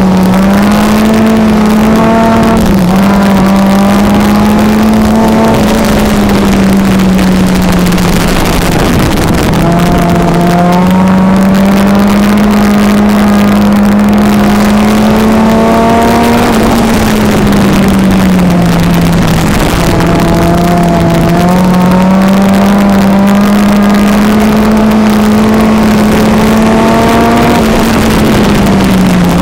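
Four-cylinder engine of a front-wheel-drive sport compact race car, heard from inside the car, running hard at racing speed. Its pitch climbs, holds, then falls back, about three times over, as the car laps the oval.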